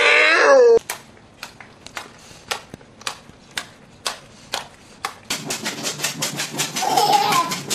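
A dog gives a short vocal call with its pitch bending down, then a run of sharp clicks or taps about two a second follows. About five seconds in the taps grow faster, with a brief high squeal near the end.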